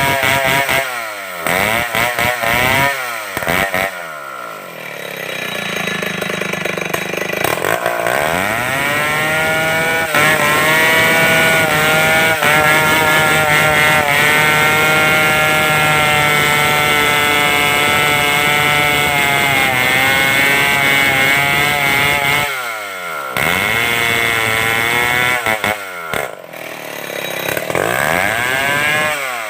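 Stihl 070 two-stroke chainsaw revving up and down in quick blips, dropping back, then held at high revs for about twelve seconds before falling off and revving up again twice.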